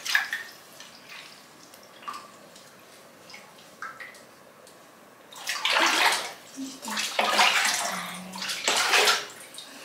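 Bath water sloshing and splashing in a tub while a puppy is washed by hand, faint at first, then in several loud bursts over the last four seconds.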